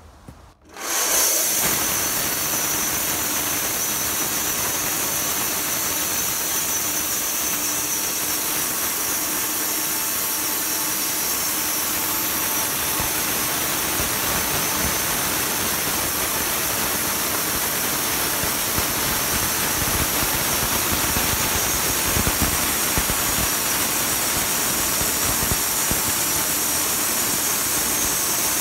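Portable band sawmill running, its band blade cutting lengthwise through a eucalyptus log: a loud, steady mix of motor and sawing noise that starts abruptly about a second in.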